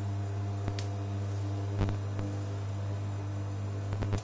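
A steady low electrical hum with a faint hiss, under a few light clicks of a metal spoon against a non-stick frying pan as pancake batter is spooned in. The hum cuts off suddenly at the very end.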